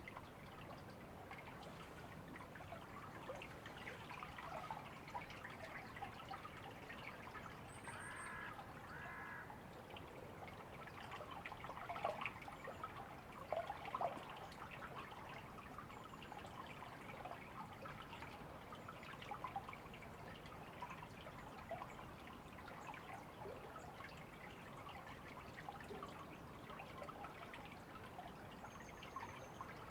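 Shallow river water babbling and trickling steadily, with many small splashes. A bird gives two short calls about eight seconds in.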